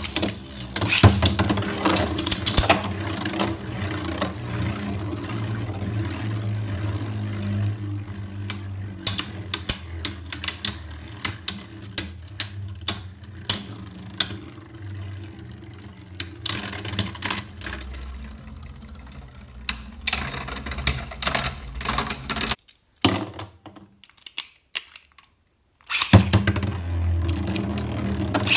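Two Beyblade Burst spinning tops, Vise Leopard and a gold acrylic Cho-Z Achilles, whirring in a clear plastic stadium, with many sharp clacks as they collide. The whir fades after about two-thirds, a few seconds of near silence follow, then whirring and clashing start again near the end.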